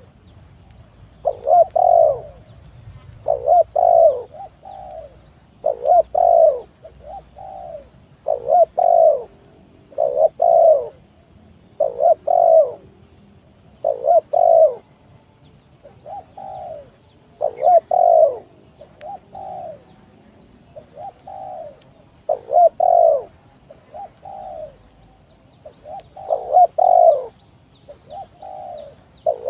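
Spotted dove (tekukur) cooing over and over, a short phrase of low, rounded coo notes about every two seconds. It is a lure call (pikat), played to draw in wild doves and to set reluctant birds calling.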